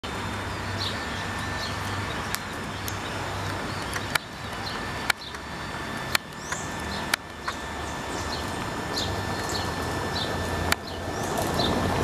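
Waterside ambience: small birds chirping over and over in short high calls, over a steady low hum. About six sharp clicks stand out, scattered through it.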